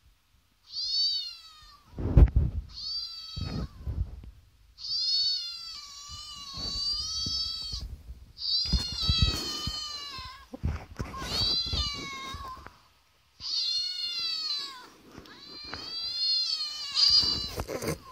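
A cat meowing over and over: about seven drawn-out, rising-and-falling meows, the longest lasting about three seconds. A dull thump about two seconds in is the loudest sound.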